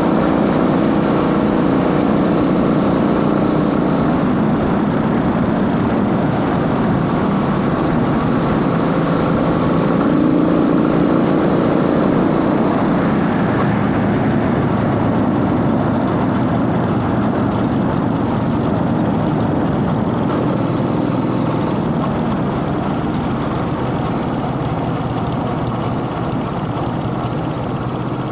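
Motorcycle engine running steadily, with intake noise and drive-chain noise mixed in. The engine note shifts slightly about halfway through and eases off a little toward the end.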